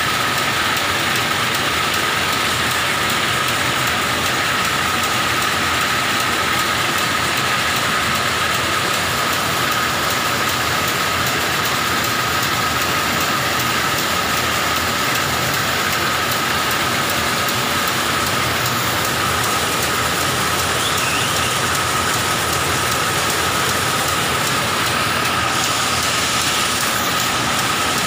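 Polyester thread reeling machines running, many spindles and large reels winding thread at once: a steady whir with a constant high whine throughout.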